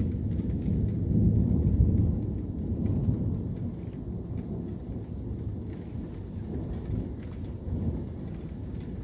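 Thunder rumbling low and long, swelling to its loudest about a second or two in and then slowly fading, with rain falling steadily.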